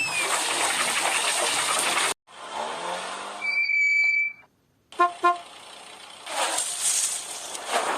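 A run of edited sound effects: a steady hiss that cuts off abruptly, a short rising whine, and a high steady beep. After a brief silence come two quick vehicle-horn toots, more hiss, and then another pair of toots.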